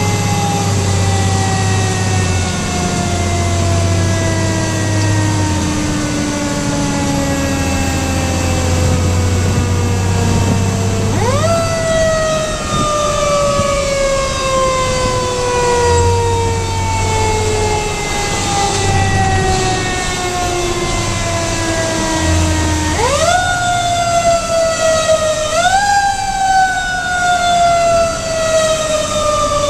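A fire engine's mechanical siren, heard from inside the cab. It winds up quickly about 11 s in, again about 23 s in and once more about 26 s in, and after each wind-up its pitch falls slowly over many seconds. The truck's engine drones low underneath.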